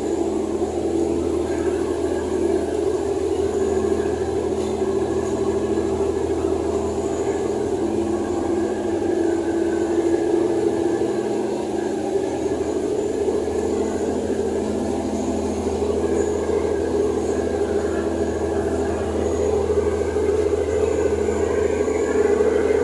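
Steady drone of an Amazon river passenger ferry's engines heard on its open deck: a constant low hum with a rushing hiss over it.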